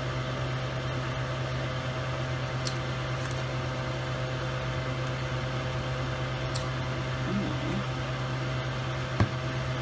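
Steady low electrical hum of a running household appliance or air conditioner, with a faint higher whine above it. A single sharp click about nine seconds in.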